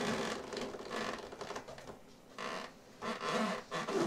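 Irregular rubbery rustling, scratching and creaking as latex balloons are handled and rubbed together, with no pop.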